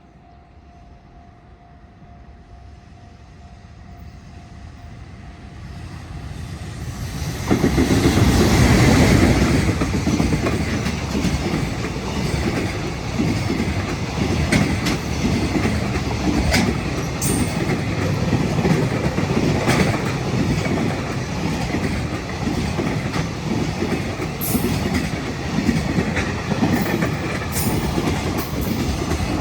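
Freight train hauled by an EF210 electric locomotive approaching and passing close by: a rumble that builds over the first seven seconds and turns suddenly loud as the locomotive reaches the microphone. The long string of freight wagons then keeps rolling past, with the clickety-clack of wheels over rail joints and scattered sharp clicks.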